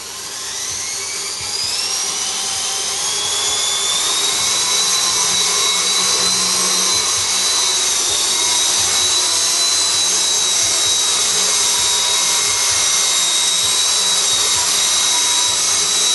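Walkera CB180D electric RC helicopter's motor and rotor spooling up, a whine rising in pitch over the first few seconds, then holding a steady high whine as it flies.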